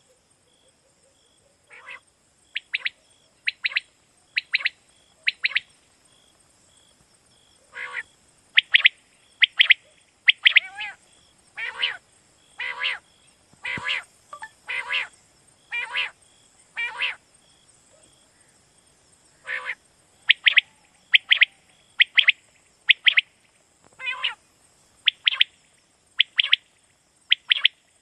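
Common quail calling over and over: short, sharp notes in quick groups of two or three, repeated about once a second with a few longer pauses.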